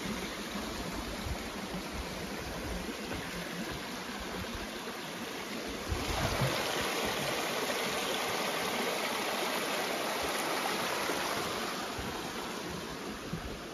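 Small creek rushing over rocks, a steady water noise that grows louder about halfway through and fades near the end.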